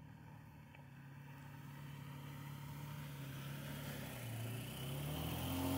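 Toyota Tacoma pickup's engine running under load as the truck climbs a dirt trail toward the listener, growing steadily louder as it approaches. The engine note dips and rises again near the end.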